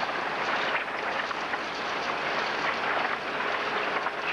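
Horizontal concrete mixer running at the batch plant: a steady rushing, rattling noise with a faint steady hum underneath.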